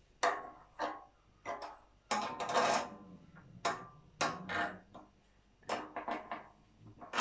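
A white bent metal tube being pushed and worked into the holes of a metal mesh trolley basket: a series of sharp knocks and clicks, metal on metal, with a short rattling clatter a couple of seconds in.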